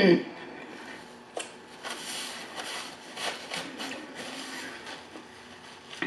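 Paper napkin crinkling and rustling as it is handled, unfolded and wiped across the mouth, with scattered soft rustles and faint clicks.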